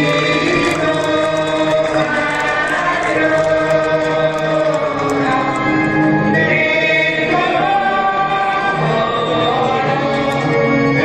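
A choir singing a slow hymn in long held notes, several voices together, changing pitch every second or two.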